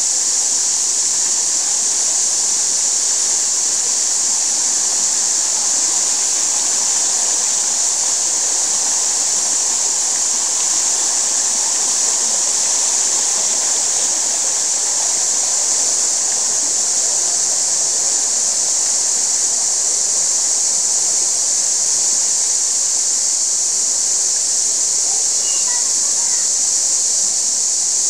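Shallow, rocky stream running over stones: a steady, even rush of water that does not change.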